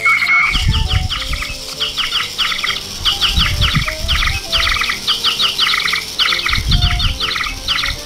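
Two Flutter Friends interactive toy hummingbirds chirping back and forth through their speakers in their talking mode: a fast, busy stream of electronic tweets, each a quick falling chirp, several a second, with a few low thumps in between.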